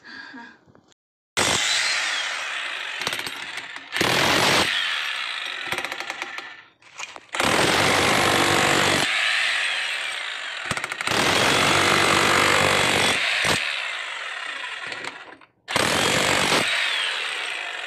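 Bitec HBM-50 electric demolition hammer (jackhammer) breaking concrete with its chisel bit. It starts about a second in and runs in several bursts of a few seconds each, with short stops between.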